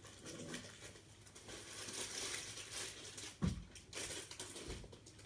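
Irregular rustling and crinkling of things being handled close to the microphone, with a heavier thump about three and a half seconds in.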